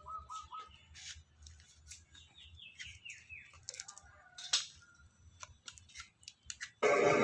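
Faint bird chirps, each a short repeated call, among scattered small clicks and knocks. Near the end a loud, steady noise starts abruptly.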